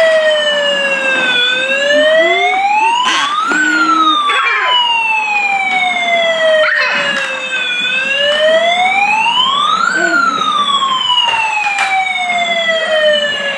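Toy fire truck's electronic siren wailing, its pitch rising quickly then falling slowly, about two full cycles, with a few sharp knocks in the middle.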